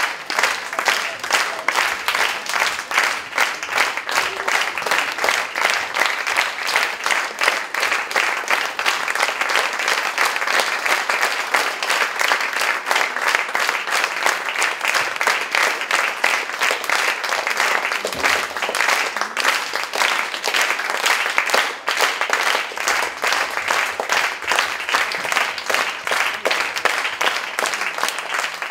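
Theatre audience applauding steadily, many hands clapping, at a curtain call.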